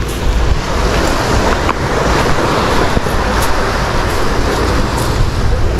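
Steady wind rumble buffeting the microphone over sea surf washing on the shore, with a few faint scuffs of footsteps on rock.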